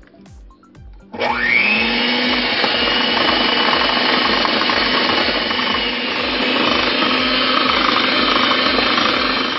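Electric mixer switched on about a second in, its motor whining quickly up to speed, then running steadily as its beaters work a cream-cheese filling in a glass bowl, until it cuts off at the end. Background music with a steady beat plays underneath.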